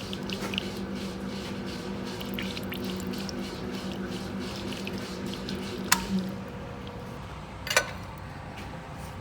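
Metal lathe machining a steel pin, its motor humming steadily under the splash and crackle of coolant and cutting. About six seconds in, the machine stops, with a sharp metallic knock as it does and another a couple of seconds later.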